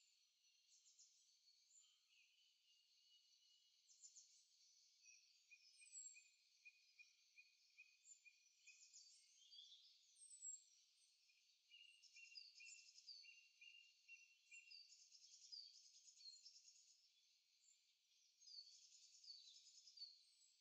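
Faint birdsong and insect chirping: short falling whistles, scattered chirps and runs of quick repeated notes, all thin and high with nothing low.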